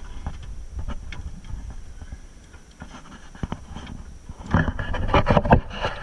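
Knocks and rattles in a small metal rowboat over a low rumble of wind on the microphone, with a loud cluster of knocks about four and a half seconds in.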